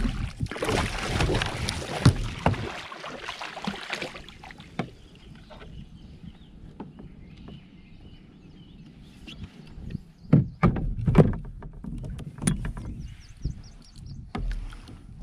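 An arrowed fish thrashing and splashing at the surface right beside a kayak for about four seconds, then quieter water. Later come a few sharp knocks and clatters against the kayak as the fish is hauled in alongside.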